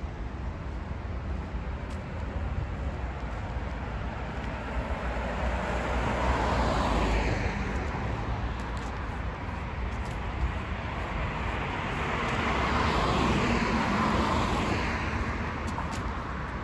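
Street traffic: two vehicles pass by one after another, their engine and tyre noise swelling and fading, the first about seven seconds in and the second around thirteen to fourteen seconds in, over a steady low rumble.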